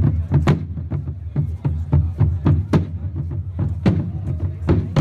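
Marching drums of a Landsknecht parade band beating a march: sharp drum strikes in an uneven pattern, about two a second, over a dense low rumble of drumming.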